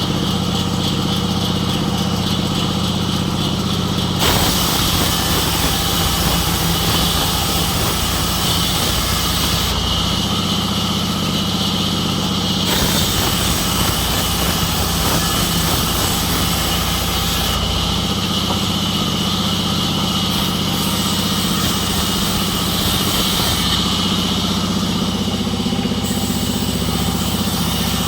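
Sawmill machinery running with a steady hum, while a high hiss comes and goes every few seconds.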